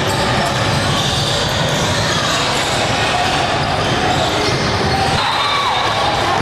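A basketball game in a gym: a basketball bouncing on the court amid a steady din of voices from players and spectators.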